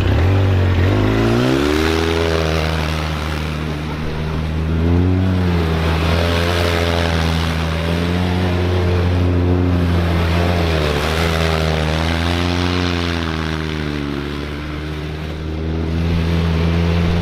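800 cc big-bore two-stroke snowmobile engine being ridden hard, its revs rising and falling again and again every couple of seconds, over a steady low drone.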